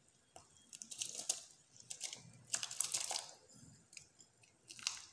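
Soaked broken basmati rice being tipped from a glass bowl into hot milk in a steel kadhai: soft wet scraping and splashing in three short bursts, about a second in, in the middle and just before the end.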